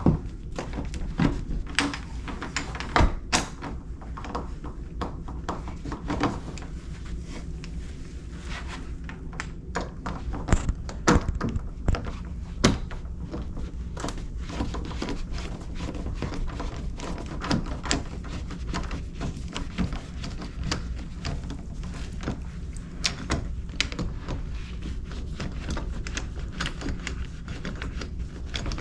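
Existing doorknob being removed from a door: scattered clicks, knocks and metal rattles of the knob and its hardware being handled and unscrewed, over a steady low hum.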